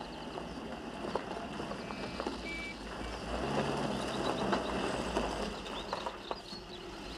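Mercedes-Benz 190 SL roadster running slowly up a gravel drive, its tyres crunching on the stones. The sound grows louder about halfway through.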